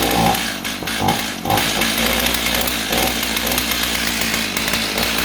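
Stihl MS290 two-stroke chainsaw engine running loud after its carburetor has been cleaned, with the level wavering and dipping now and then. The owner takes it for an engine starving for fuel.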